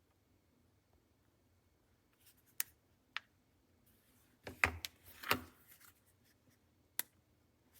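A few faint, sharp clicks, with a short burst of scraping and rustling handling noise a little past the middle.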